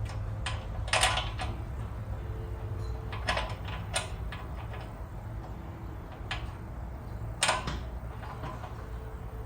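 Scattered clicks and light knocks of hand tools and bolts while painted sheet metal is fitted and bolted onto a motorcycle, over a steady low hum.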